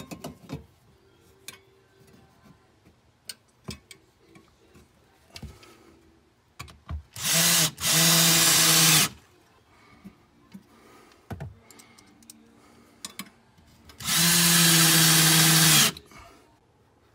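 Cordless drill-driver running twice, about two seconds each time, at a steady pitch while driving screws through the back of a steel electrical box into a wooden board. The first run stops briefly and starts again. Light metallic clicks and knocks come from the boxes being handled between the runs.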